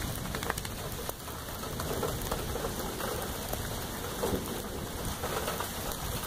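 Steady rain falling, an even hiss dotted with many small ticks of drops landing close by.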